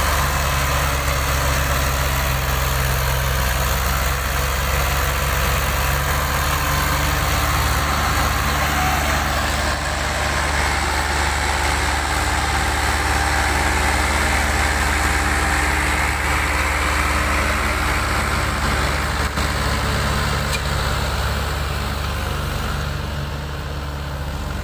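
Two Mahindra 575 DI tractors' diesel engines running under heavy load, one tractor towing the other as they haul a loaded paddy trailer through deep mud: a steady low engine drone that eases slightly near the end as they pull away.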